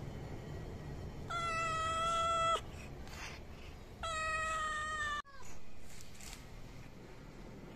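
Tabby cat meowing twice: two long meows of level pitch, each about a second long and dipping briefly at the end, about a second and a half apart.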